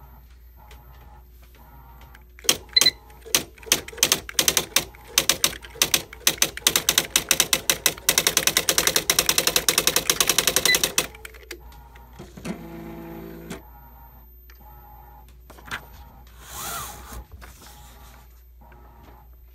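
Smith Corona XD 6600 electronic typewriter typing. The print mechanism strikes the paper in irregular sharp clacks, then speeds into a fast, even run of strikes for about three seconds that stops suddenly. Brief softer mechanical whirring follows twice.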